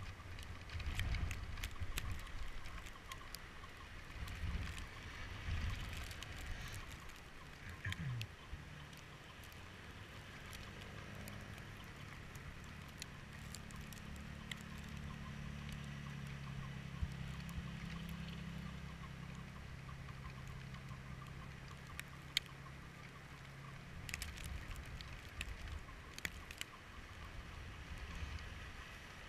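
Faint vehicle engine hum, steady through the middle stretch, over low rumbling noise on the microphone and scattered light clicks.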